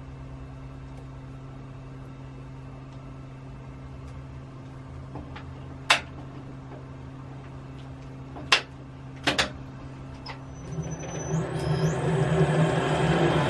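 Metal lathe running with a steady hum, with a few sharp clicks, then about eleven seconds in a tool starts cutting off the shrink-fitted Morse taper from its shaft: a loud, rising grinding cut with a high whine that climbs in steps.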